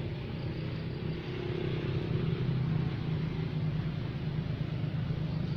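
A steady low engine hum, swelling slightly about two seconds in.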